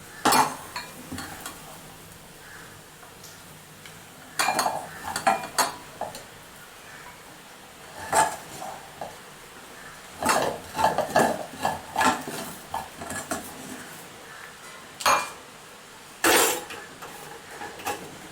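A spoon scraping and clinking against a pan as the finished beef fry is spooned out into a serving bowl, in irregular clusters of knocks and scrapes with short pauses between.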